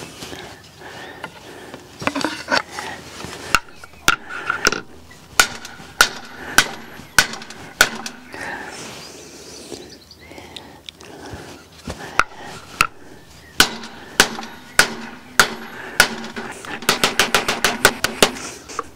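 Hammer blows knocking the greased seat post down into the bike frame's seat tube: sharp single knocks at uneven intervals, then a quick run of light taps near the end.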